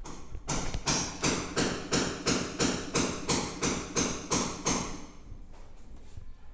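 Hammer blows, about a dozen quick, evenly spaced strikes at roughly three a second, stopping about five seconds in.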